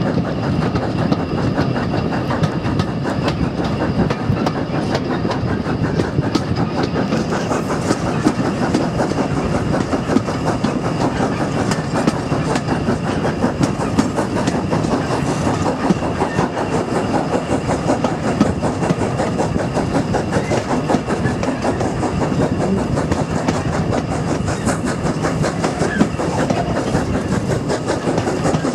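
Steam-hauled passenger train on the move, heard from an open carriage window: a steady rumble with a rapid clatter of the coach's wheels on the track, and the steam locomotive's exhaust working ahead.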